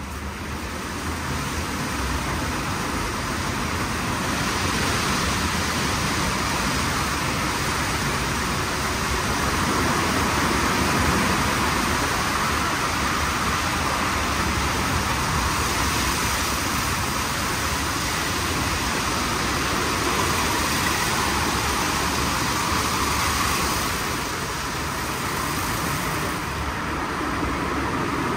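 WashTec SoftCare² Takt automatic car wash running, a steady rushing noise that eases slightly about 24 seconds in.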